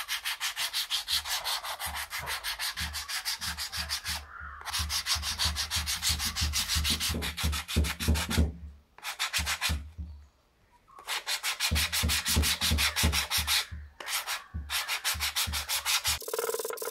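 Sandpaper rubbed in quick back-and-forth strokes over a hand-carved wooden fishing-lure body, smoothing its outer surface. The rasping strokes come several a second in runs, with a few short pauses, the longest about a second long midway.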